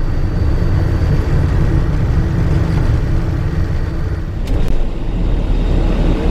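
Steady, loud vehicle rumble. About four and a half seconds in there are faint clicks and the rumble turns deeper.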